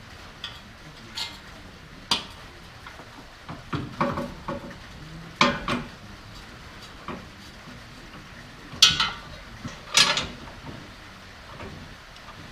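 Irregular metallic clinks and clanks of hand tools and steel suspension parts as a car's subframe and suspension are bolted back together, with the two loudest about nine and ten seconds in.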